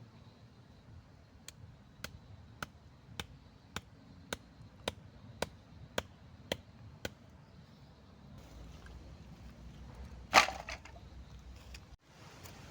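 A blade chopping, about eleven sharp, evenly spaced strikes at roughly two a second, then one louder knock near the end.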